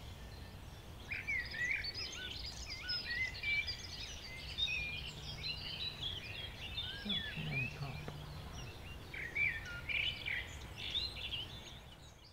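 Songbirds singing in a busy chorus of many short, varied chirps and warbles, with a faint low hum in the middle; the sound fades out at the end.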